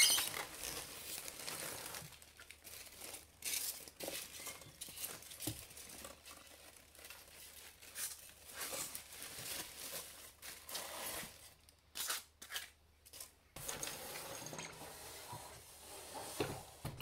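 Tissue paper rustling and crinkling and polystyrene foam packing rubbing and scraping in irregular bursts as a heavy die-cast model excavator is lifted out of its foam box, with a short lull about three quarters through.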